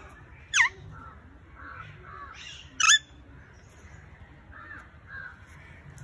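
Alexandrine parakeet giving two loud, harsh screeches. The first, about half a second in, falls in pitch, and the second comes near three seconds. Faint chatter of other birds runs underneath.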